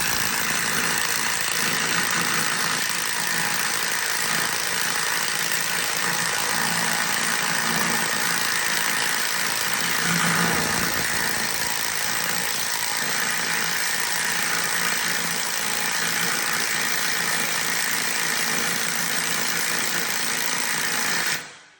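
MOK 6801 impact wrench running steadily during a torque test, then cutting off abruptly near the end.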